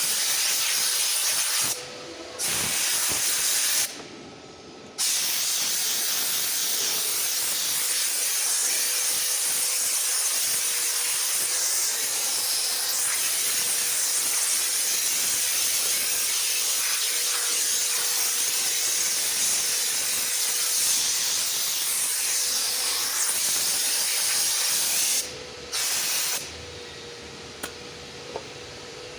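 Power grinder sanding down the repaired rear fender panel: a steady grinding hiss with a faint constant motor whine. It cuts out briefly twice early on, runs steadily, then stops, with one short final burst near the end.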